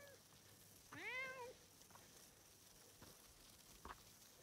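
Domestic cat meowing once, about a second in: a single short meow that rises and then falls in pitch.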